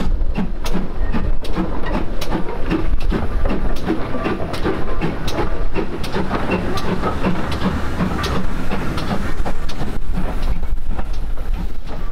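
A train running on the line, with a steady beat of knocks of about two to three a second.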